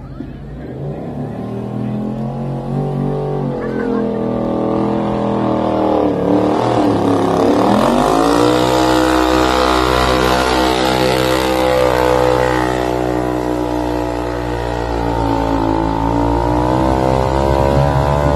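Motorcycle engine of a mini modified pulling tractor running at high revs through a pull: the pitch climbs for several seconds, drops briefly about six seconds in, then climbs again and holds high.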